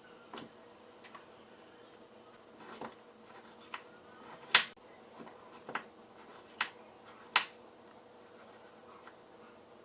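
Scattered sharp clicks and knocks of kitchen handling at irregular intervals, two of them louder about halfway through and near the end, over a faint steady hum.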